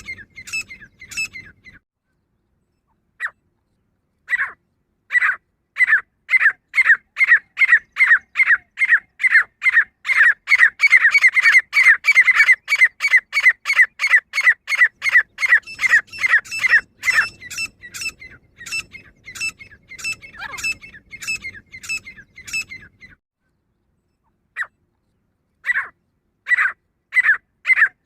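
Female grey francolin (teetar) calling: a long series of short, sharp, high-pitched notes, about two to three a second, crowding together in the middle. The run breaks off abruptly into silence a few times.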